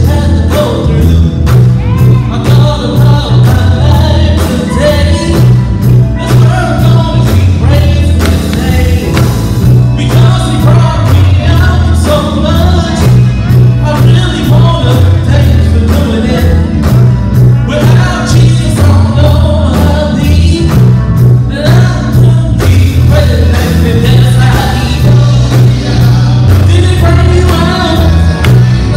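Live gospel quartet music: a male lead singer singing through a microphone and PA over electric guitars, keyboard and a drum kit, with a heavy, steady bass beat.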